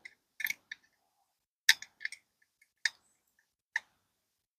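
Small metal wrench clicking against the locking nut on a motorcycle tire's valve stem as the nut is tightened back against a TPMS sensor. It makes a string of sharp, uneven clicks that stops about four seconds in.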